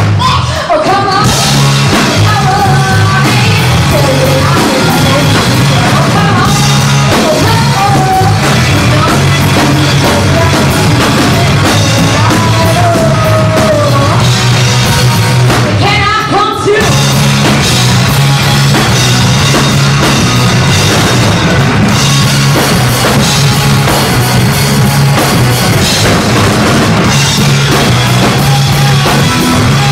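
Live rock band playing: electric guitar, bass and drum kit, with a woman singing at intervals over them.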